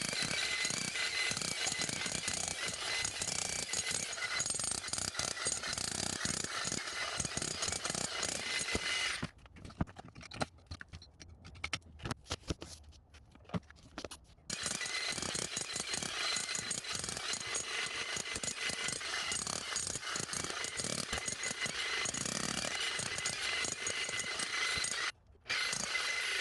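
Jackhammer breaking up old concrete around a fence post hole, hammering rapidly and steadily. It stops about nine seconds in for roughly five seconds, with a few scattered knocks, then starts again, with a second brief stop near the end.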